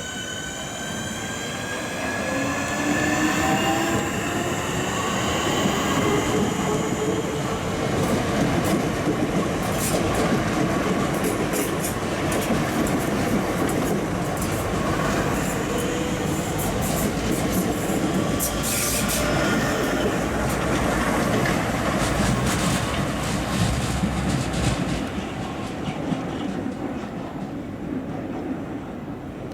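Electric multiple-unit train pulling away through the station: its traction motors whine, rising in pitch as it picks up speed. The wheels then clatter and click over the rail joints, and the sound fades near the end.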